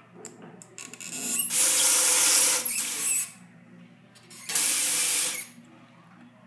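Bathroom sink faucet with two lever handles turned on twice, water running into the basin for about two seconds and then about one second, shut off sharply each time.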